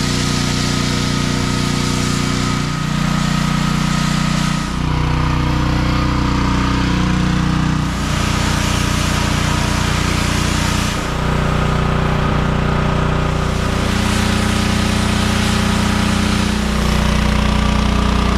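Pressure washer running steadily, its motor note shifting every few seconds as the trigger is worked. Over it, the hiss of the spray wand and foam cannon comes and goes.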